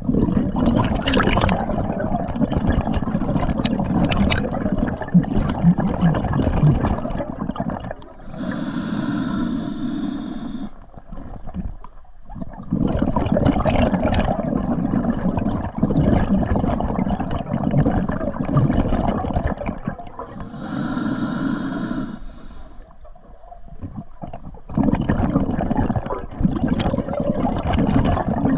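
A scuba diver breathing through an open-circuit regulator underwater: long spells of exhaled bubbles rushing out past the mask, broken about 8 seconds in and again about 20 seconds in by a shorter hissing inhalation through the regulator.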